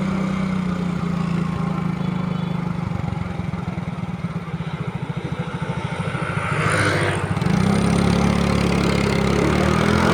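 Tour bus diesel engine running close by with a low, fast-throbbing rumble, a brief whoosh about seven seconds in, then the engine growing louder near the end.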